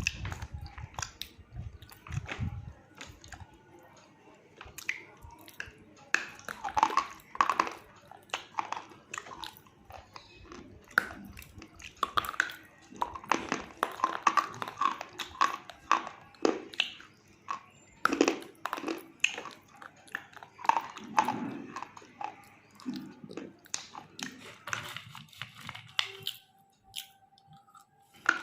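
Close-miked biting and chewing of a hard chalk-like mineral such as slate pencil or multani mitti, with sharp crunches coming in irregular clusters that thin out near the end.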